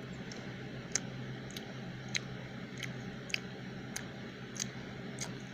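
A person chewing a breaded pretzel chicken fry close to the microphone: a sharp crunching click about every half second, over a steady low hum.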